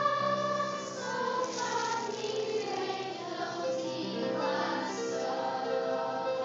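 Children's choir singing. A held chord ends about a second in, and the voices then move on through a changing melody.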